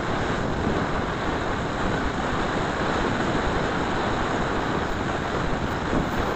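Steady rush of wind on the microphone of a moving rider, mixed with road noise, with no clear engine note.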